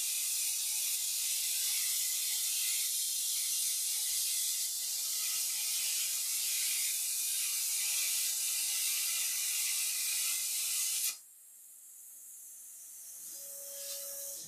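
CNC plasma torch cutting sheet metal: a loud, even, high-pitched hiss of the plasma arc that cuts off abruptly about eleven seconds in. A much quieter hiss follows and slowly rises, with a short steady tone near the end.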